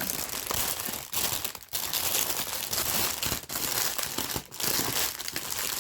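Crinkly plastic packaging being handled and pulled open, crinkling almost without a break, with a few brief pauses.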